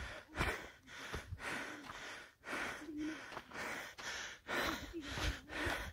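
A person breathing hard, with quick, repeated breaths about every half second to a second. Some breaths carry a faint voiced catch, like out-of-breath panting after an uphill walk.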